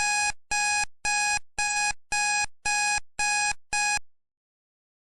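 Quiz countdown timer sound effect: an electronic alarm-like beep repeating about twice a second, eight beeps in all, stopping about four seconds in.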